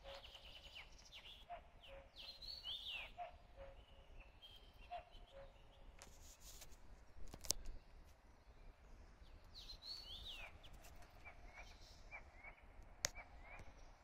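Faint birdsong in a forest: several songbirds give quick, high, falling whistled notes, over a short low note repeated about once a second. Two sharp clicks cut through, the louder a little past halfway and the other near the end.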